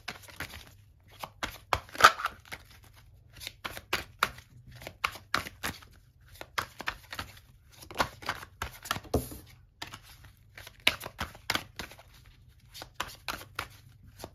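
A deck of tarot cards being shuffled by hand: irregular runs of quick, sharp card clicks and flicks, with one louder slap about two seconds in.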